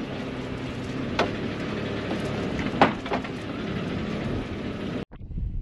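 Catamaran engines idling steadily in neutral, with two sharp knocks about a second and about three seconds in. The sound cuts off suddenly near the end.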